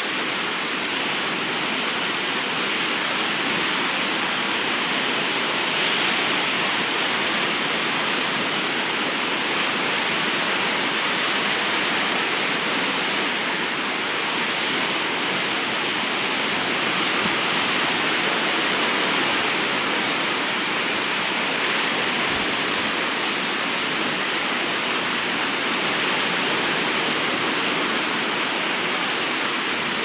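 Moderate Baltic Sea waves breaking on a sandy beach: a steady rushing surf that swells gently in loudness every few seconds.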